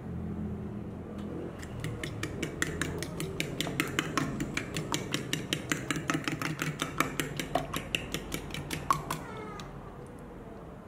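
A fork whisking beaten egg mixture in a ceramic plate, its tines clicking against the plate about five times a second. The clicking stops about nine seconds in.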